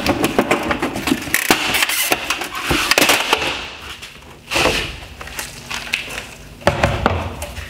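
Headlight lens of a 2017 Mercedes-Benz C-Class LED headlight being pulled off the housing by hand, making a dense run of cracks and clicks as it comes free. There is a louder crack about four and a half seconds in and another near seven seconds.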